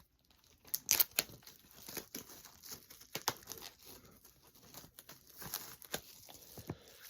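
Plastic crinkling and irregular clicks as a DVD case is handled and opened.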